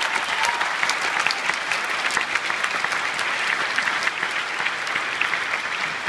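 Audience applauding: many hands clapping at once in a dense, steady patter that eases slightly near the end.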